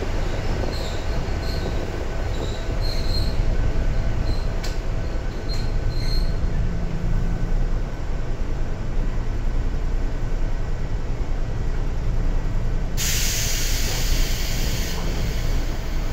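Sangi Railway 101-series electric train running, heard on board: a steady rumble of wheels and traction motors, with short high squeaks and a few clicks in the first six seconds. A hiss rises for about two seconds near the end.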